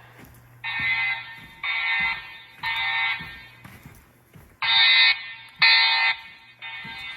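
EST Genesis speaker/strobes sounding the "masked integrity" alarm tone in a temporal-three pattern: three half-second tones, a pause, then three more.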